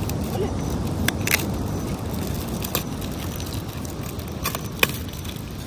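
Scattered crinkles and small snaps as hand-held fireworks sticks, glued tightly together in their plastic packaging, are peeled apart one by one, over a steady low background rumble.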